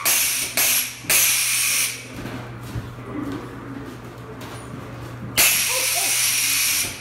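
Haunted-house pneumatic scare effect blowing loud bursts of hissing air: three short blasts in the first two seconds, then a longer one about five and a half seconds in, over a steady low hum.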